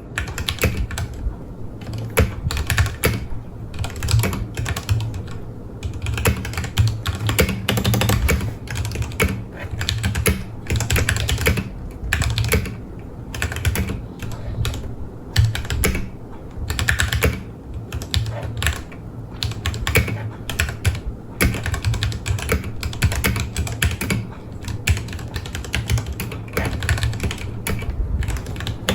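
Typing on a Ducky One 2 Mini mechanical keyboard with Cherry MX Speed Silver linear switches: fast, continuous keystrokes clacking, with a few short pauses.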